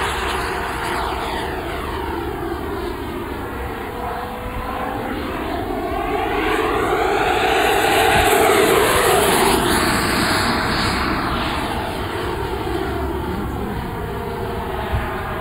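Freewing Avanti RC jet's 80 mm WeMoTec 11-blade electric ducted fan, driven by a brushless motor at full throttle, rushing past at speed. The sound swells to its loudest about eight to nine seconds in, then fades as the model climbs away.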